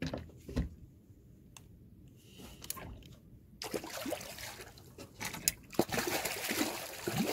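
Faint clicks at first, then about halfway in water starts trickling and splashing, with small knocks mixed in.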